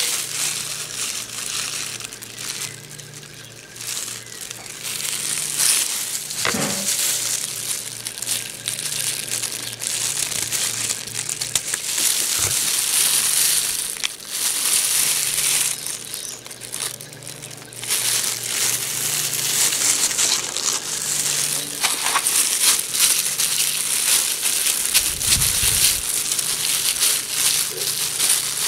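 Thin disposable plastic gloves crinkling and rustling in stretches as gloved hands turn and rub a hard-boiled egg.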